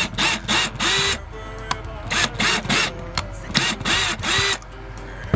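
Cordless drill driving screws in short trigger pulses, the motor whirring up and down in three groups of about three bursts.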